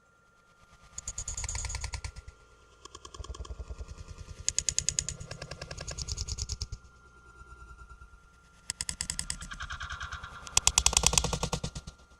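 Clattering in short bursts of fast rattling clicks, about eight bursts each lasting a second or so, with a faint steady high tone underneath.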